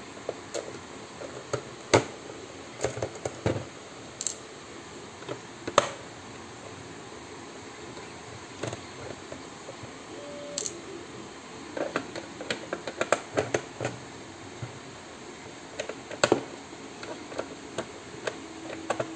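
Irregular clicks, taps and knocks of a Nerf Stryfe blaster's hard plastic shell and a small screwdriver being handled as the blaster is taken apart, over a steady background hiss.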